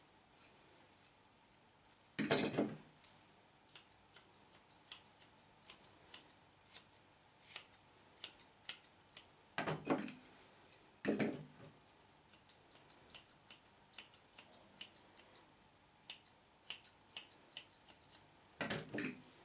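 Grooming shears snipping through a poodle's coat in quick runs of small, crisp metallic clicks, with four louder knocks in between.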